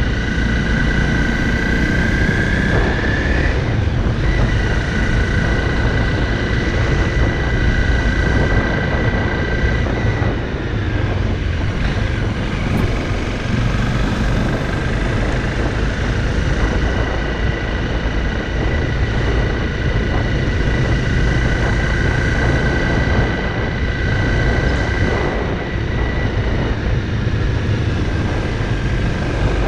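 Honda CRF motorcycle being ridden at a steady pace, the engine running under a heavy rumble of road noise, with a steady high whine that drops out briefly a few times.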